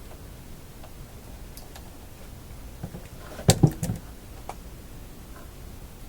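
Small clicks and, about three and a half seconds in, a short cluster of louder clacks as a capacitor and clip lead are handled on the workbench, over a faint steady hiss.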